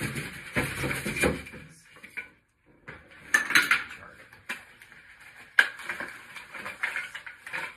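Handling noises: a dense clatter and rustle for the first couple of seconds, then after a short hush, crinkling and a few sharp clicks and knocks as a small cardboard accessory box is opened and gone through.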